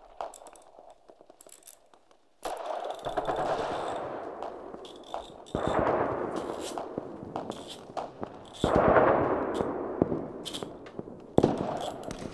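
Gunfire sound effects: after about two quiet seconds, four bursts of crackling fire, each coming in suddenly about three seconds apart and then fading.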